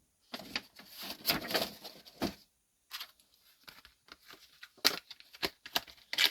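Plastic model car parts being handled on a workbench: irregular rustles, light taps and a few sharp clicks, with a short pause about two and a half seconds in.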